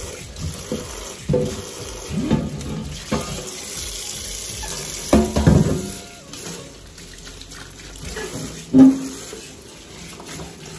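Tap water running onto a black enamel oven tray being washed by hand in a sink, with irregular knocks and clatters as the tray is scrubbed and turned. The loudest is a single sharp knock about three-quarters of the way through.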